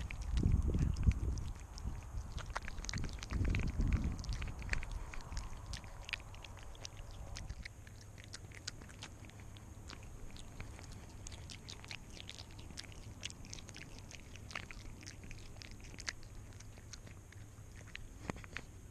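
Cat chewing and biting on a freshly caught mouse, a steady run of small crunching clicks heard close up from its collar, with heavier rumbling movement noise in the first few seconds.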